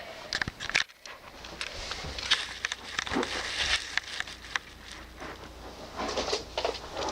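Handling noise: irregular clicks, taps and rustles as Nerf Rival toy blasters are picked up and moved about.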